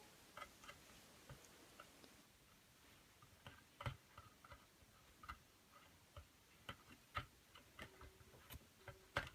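Faint, irregular small clicks and taps of a plastic toy figure being handled and climbed up a toy playset's net, a little louder around the middle and just before the end.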